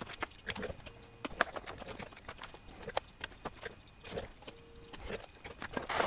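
Foil pouches crinkling and rustling as they are handled, with clicks from the hand-operated impulse heat sealer's arm. Twice a short steady hum, about a second in and again near five seconds, as the sealer heats its element to seal a bag.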